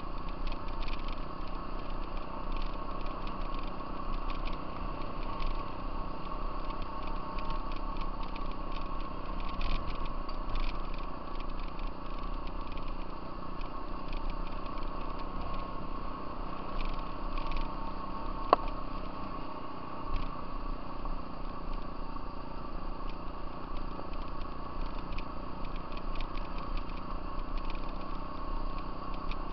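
Off-road vehicle engine running steadily while riding along a gravel trail, with a constant drone and light rattling. One sharp click about two-thirds of the way through.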